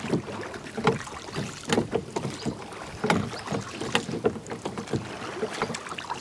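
A small wooden rowing boat being rowed, its wooden oars knocking and clunking in the rowlocks with each stroke. The knocks come irregularly, a few times a second, over the swish of the water.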